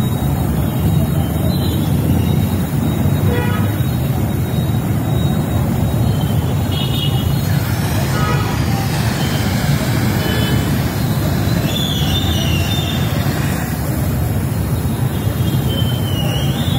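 Gas welding torch flame burning with a steady low roar while filler rod is melted into a weld seam around a shock absorber tube. Faint, brief high tones sound now and then over it.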